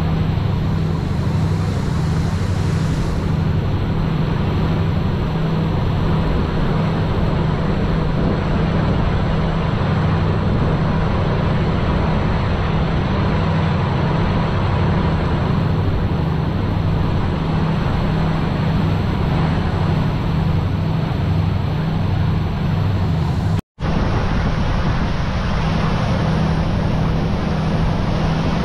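Steady drone of a boat's engine under way, with the rush of water in its wake. The sound cuts out for an instant about three-quarters of the way through.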